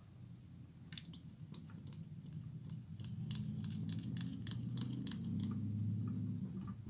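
Fingers handling and stroking the synthetic fibres of a pink baitfish fly held in a tying vise, making a string of small, sharp ticks. Under them runs a low steady hum that grows louder about halfway through.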